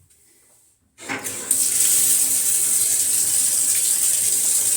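Shower turned on about a second in, then water spraying steadily from the shower head.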